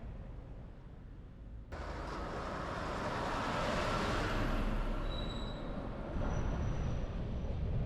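Steady low road rumble from a moving car, then a rush of noise starting suddenly a couple of seconds in, swelling and slowly fading, with a few brief high whines near the middle, like a vehicle passing close by.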